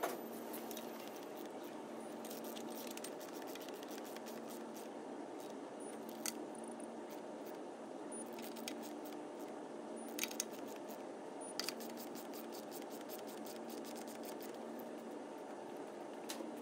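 Hand ratchet clicking in short runs while a fastener on the engine is turned, with scattered metallic ticks and taps from the tool. The busiest runs of clicks come about two-thirds of the way in, over a steady hum.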